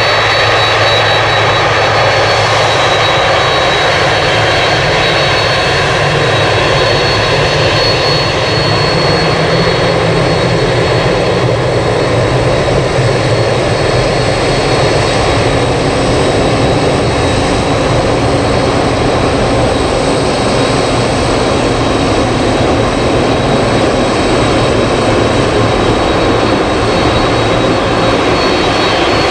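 Jet airliner's turbofan engines running steadily and loud as the plane taxis and turns on the runway, a dense rush with a steady high whine over it.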